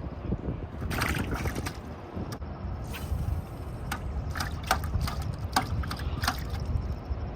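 Water splashing and lapping at the river's edge, a string of short sharp splashes over a steady low wind rumble on the microphone.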